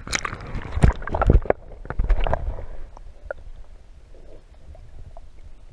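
A hooked snook thrashing and splashing in shallow water right against the camera: three heavy thumps with splashing in the first two and a half seconds, then quieter sloshing and small knocks.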